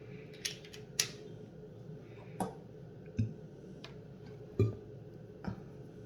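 About seven short clicks and light taps, scattered unevenly over six seconds, a few with a soft knock to them: makeup containers and tools being handled.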